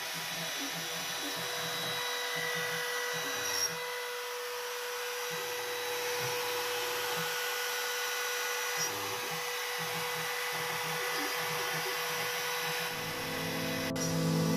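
Makita router running as the spindle of a CNC router, a steady whine as the bit carves a relief in wood. Music fades in near the end.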